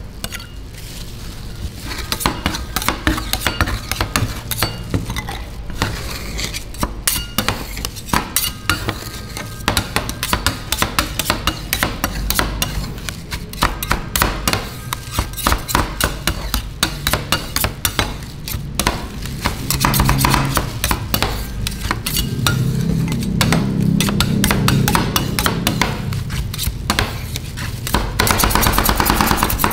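Metal spatulas chopping and scraping on a chilled metal rolled-ice-cream pan, a rapid, irregular clatter of taps as crushed potato chips are mixed into the liquid cream base.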